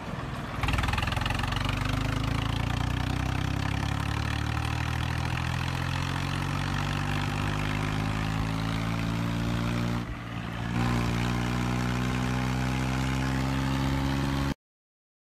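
John Deere 5210 tractor's three-cylinder diesel engine running steadily, heard from the driver's seat while it pulls a cultivator through the field. Its pitch creeps slowly upward, dips briefly about ten seconds in, then picks back up. The sound cuts off sharply near the end.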